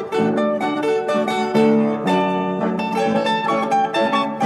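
Background music of plucked string instruments, with notes changing several times a second.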